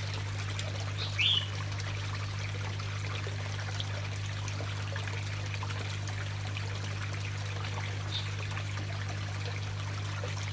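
Water trickling steadily in a small koi pond, over a constant low hum. A short high chirp sounds about a second in, and a fainter one later.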